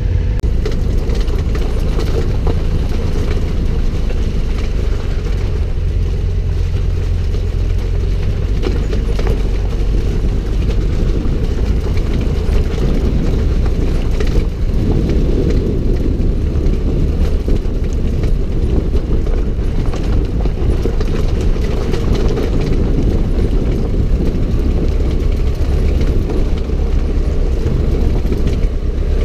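Adventure motorcycle engine running steadily: a loud, even low rumble that does not break off.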